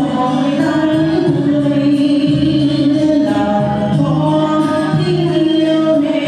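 Song with sustained singing over musical accompaniment.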